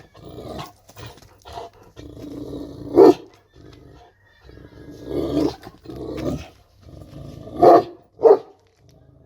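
Kangal dog growling, with loud barks: one about three seconds in and two close together near the end.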